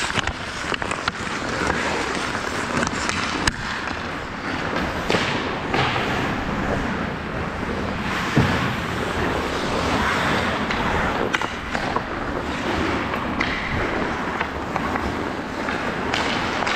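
Ice hockey skate blades carving and scraping across the ice, with scattered sharp clacks of sticks on the ice and puck.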